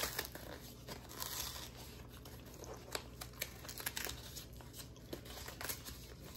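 Baking-soda fridge deodorizer packs being peeled open by hand along their perforated lines: scattered small tearing and crinkling sounds.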